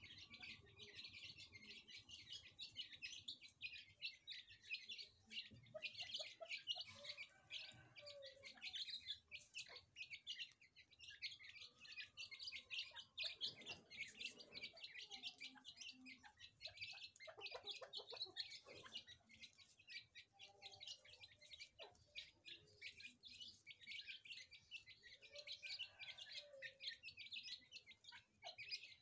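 A brood of partridge chicks cheeping without a break, many thin, high peeps overlapping.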